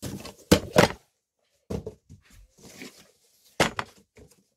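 Several hard thumps and knocks of things being handled and dropped: two loud ones close together about half a second in, a few lighter ones, and another loud pair near the end.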